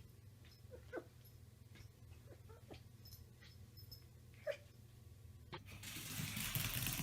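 A dog whimpering: a few short whines that fall in pitch, spread apart, followed near the end by a growing rustling noise.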